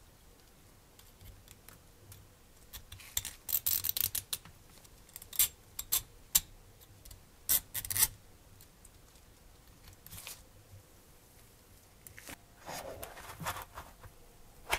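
Handling of small metal model-engine parts with gloved hands: scattered light metallic clicks and taps while tiny screws are driven in with a small driver. Near the end comes a short scratchy rustle as a part is picked out of a foam tray with tweezers.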